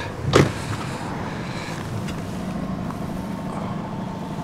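A car engine idling steadily under a low hum, after a brief sharp noise about half a second in.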